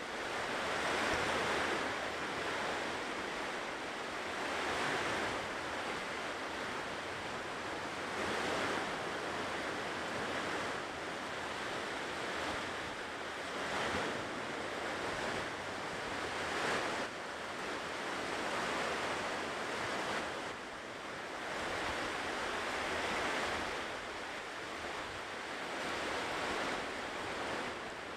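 Ocean surf washing onto a shore: a continuous hiss of breaking waves that swells and recedes every three to four seconds.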